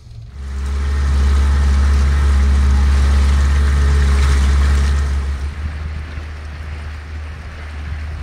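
Outboard motor running as the boat gets under way, with a steady low drone. It is loud for about five seconds, then eases to a lower level.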